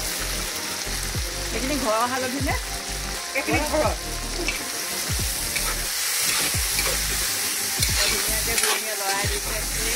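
Meat sizzling as it fries in a black iron wok, stirred with a metal spatula that scrapes against the pan every second or two over a steady hiss of frying.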